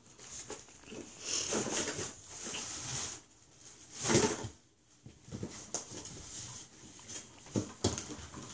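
Rustling and knocking as a toddler climbs over plastic toys and up a large cardboard box, with several sharp bumps and one louder noise about four seconds in.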